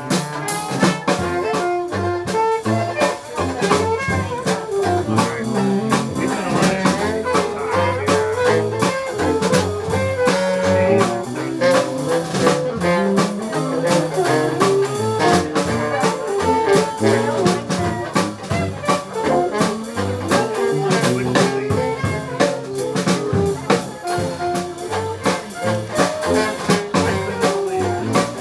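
A live Dixieland jazz band playing, with trombone and other brass over a drum kit keeping a steady beat.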